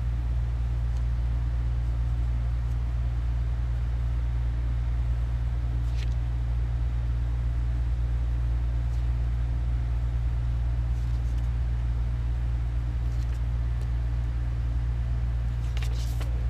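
A steady low hum throughout, with a few faint light clicks, several of them close together near the end.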